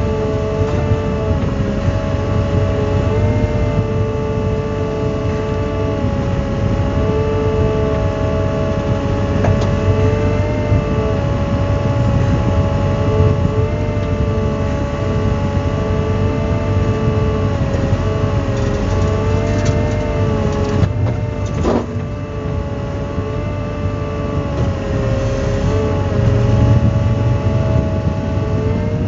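Volvo EW160A wheeled excavator's diesel engine running steadily under hydraulic work, heard from inside the cab: a low rumble with a steady whine on top that bends slightly in pitch as the rotortilt and grapple are worked. A single sharp knock comes about 22 seconds in.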